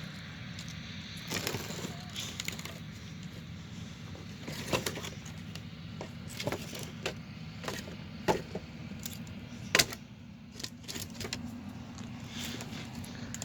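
Steady low drone of distant farm machinery running, overlaid by scattered sharp clicks and cracks close by, the loudest about ten seconds in.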